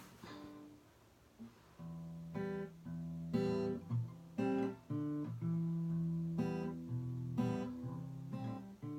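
Acoustic guitar playing a song's introduction in picked and strummed chords. It comes in about two seconds in, with each chord ringing on.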